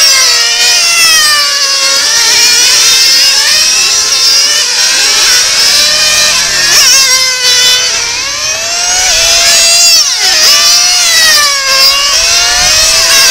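Several radio-controlled model racing cars lapping a circuit, their small engines screaming at high revs and repeatedly rising and falling in pitch as they accelerate and brake through the corners.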